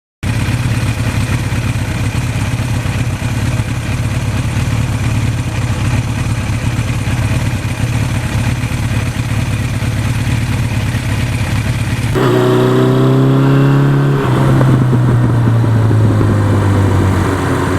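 1982 Suzuki GS1100E's inline four-cylinder engine running on the move, a steady note. About twelve seconds in the sound changes to a clearer engine note, which shifts about two seconds later and then falls slowly as the revs drop.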